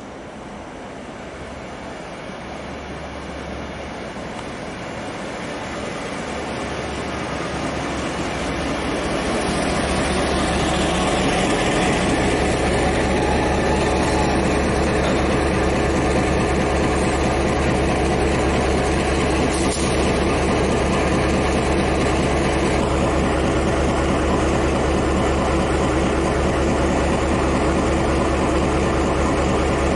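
A diesel-electric freight locomotive pulling in close by. It grows steadily louder over the first ten seconds or so, then its diesel engine runs steadily at idle just below.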